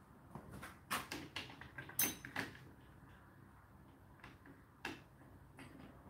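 Metal spoons being laid into a dishwasher's plastic top cutlery tray: a series of light clinks and knocks, the loudest about two seconds in.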